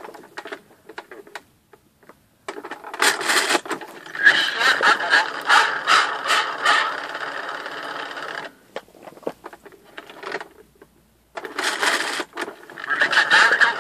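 Mattel See 'n Say "The Farmer Says" toy, French version, played by pulling its lever: the pointer spins with a mechanical clatter while the toy's built-in recording speaks a farm-animal announcement with the animal's call. It plays about two and a half seconds in and again near the end, with short clicks of the lever being handled in between.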